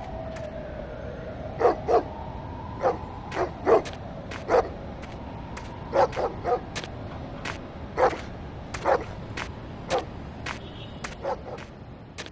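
A dog barking repeatedly at irregular intervals, over a steady low background rumble.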